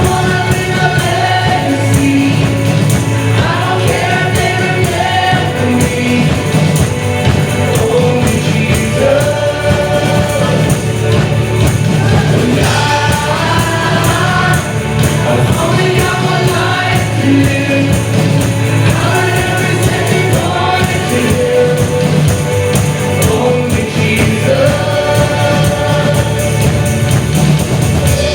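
Worship music: a group of voices singing a Christian worship song over instrumental accompaniment, with long held notes.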